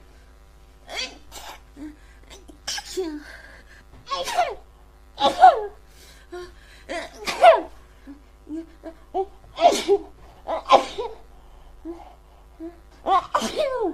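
A woman sneezing over and over in an uncontrollable fit: a string of sharp sneezes every second or two, with short catching breaths between them.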